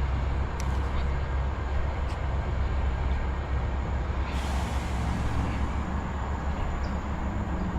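Steady low rumbling noise with a few faint clicks; the high end grows hissier about halfway through.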